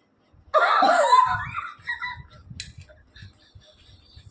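A person laughing for about a second and a half, then faint low thumps and one sharp click.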